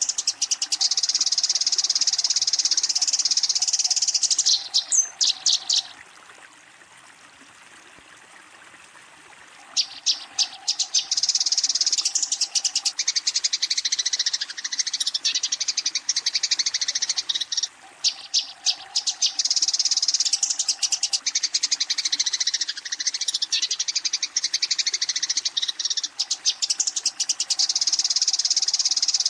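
Eurasian tree sparrows giving fast, dense chattering chirps, the agitated fighting call of sparrows calling out a rival. There is a pause of about three seconds about six seconds in.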